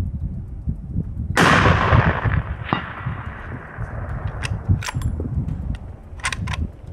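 A single 300 PRC rifle shot about a second and a half in, its report dying away over a second or so. A fainter crack follows about a second later, then a few short sharp clicks.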